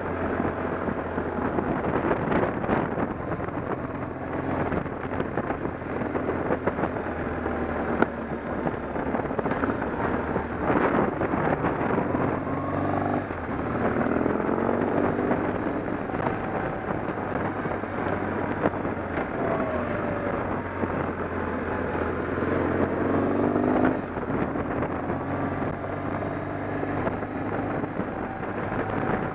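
An engine running steadily with wind noise over the microphone. Its pitch climbs about halfway through, then climbs again near the end and drops off suddenly.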